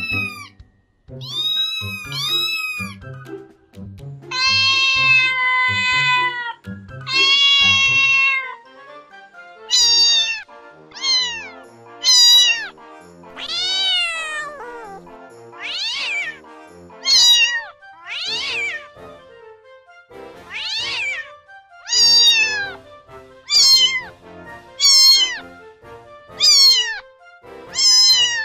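Cat meowing again and again over background music: two long drawn-out meows near the start, then a quick run of short meows about one a second.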